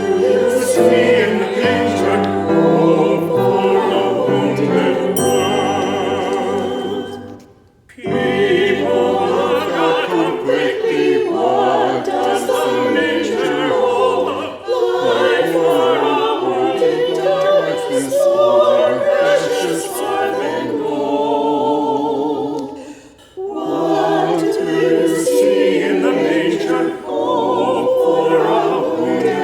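A choir singing a sacred piece in phrases, with short pauses for breath about eight seconds in and again a little past twenty seconds.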